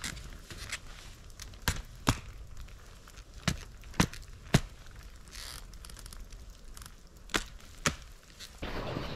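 Footsteps and gear knocks of a skier hiking uphill on thin snow: sharp clicks, often in pairs about half a second apart, with pauses between. About eight seconds in, a louder, denser rustling sets in.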